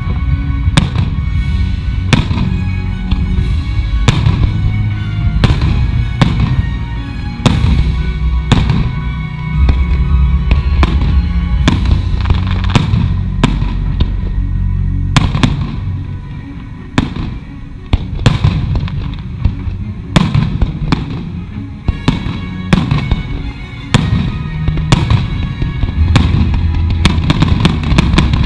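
Aerial fireworks shells bursting one after another in quick succession, with a short thinner stretch about midway. Music plays underneath.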